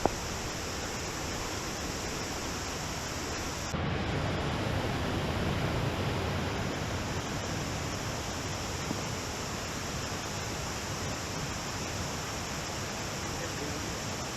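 Steady rush of a waterfall, an even noise with no breaks, which turns a little louder and deeper about four seconds in. A short click comes at the very start.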